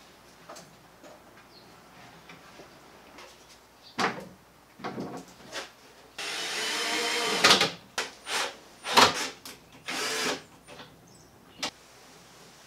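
Wooden boards knocking and clattering as a plywood shelf is handled and fitted. A cordless drill runs for about a second and a half, then more sharp knocks follow.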